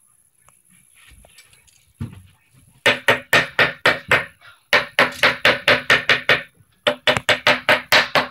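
Rapid banging on a hard object, about five strikes a second, coming in three runs with short pauses between them, starting about three seconds in.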